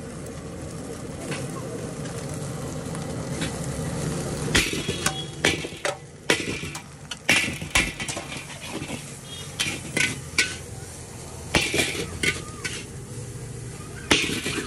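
Chowmein being stir-fried in a wok: a steady frying sizzle, then from about four seconds in, repeated sharp clangs and scrapes of a metal spatula against the wok.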